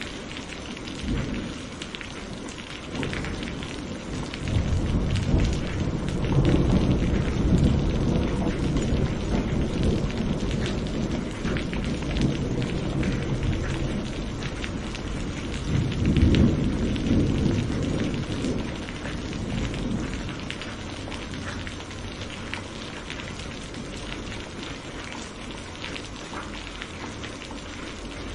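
Steady rain falling, with scattered drops ticking close by. Low rolling thunder swells up about four seconds in and fades over several seconds, then rolls again a little past the middle.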